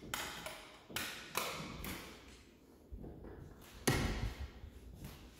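Footsteps on a bare hardwood floor: about six uneven taps and thumps, each trailing off in the echo of an empty, unfurnished room.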